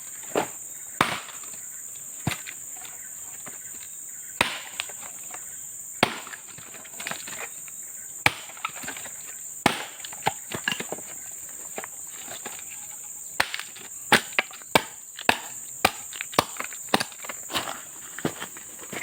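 Irregular sharp chopping strikes on wood, coming faster in the last few seconds, over a steady high-pitched insect drone.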